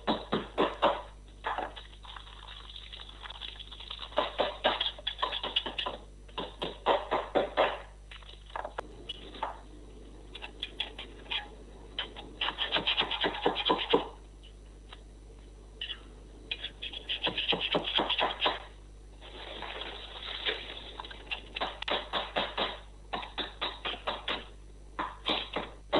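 Hammer tapping short nails into a wooden base, in runs of quick strikes several a second with short pauses between. The nails fix a galvanized wire sculpture armature firmly to the wood.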